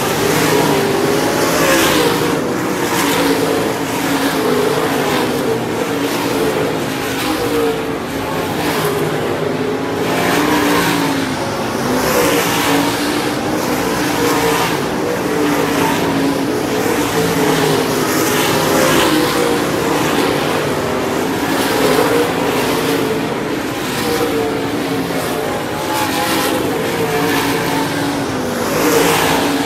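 A field of dirt-track race cars running hard around a dirt oval, their engines at full throttle. The sound rises and fades again and again as car after car passes close by.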